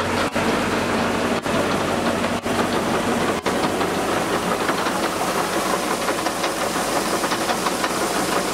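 Paddy combine harvester running: a steady engine hum under dense mechanical noise, broken by brief gaps about once a second over the first few seconds.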